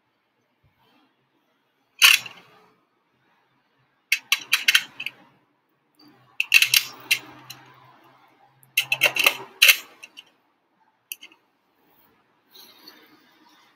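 Hard plastic clicks and clacks of a Nerf blaster being handled and its attachments snapped on quickly, in several short bursts of sharp clicks a couple of seconds apart.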